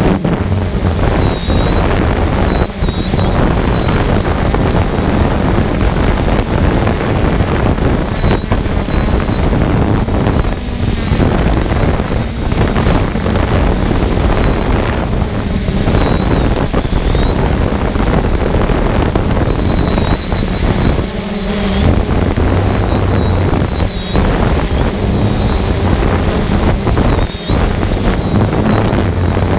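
Loud, steady wind rumble on the microphone, with a faint high whine that wavers slightly in pitch from a quadcopter drone's spinning propellers.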